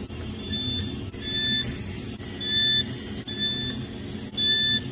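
Resistance spot-welding gun welding a car body panel seam: a steady low electric buzz, with short high beeps repeating through the welds.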